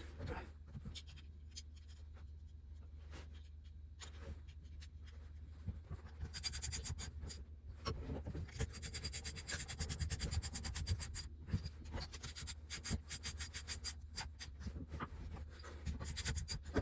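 Hands working with metal engine parts and tools while fitting the cylinder onto a two-stroke dirt bike engine: many small clicks and scrapes, busiest in the middle, over a steady low hum.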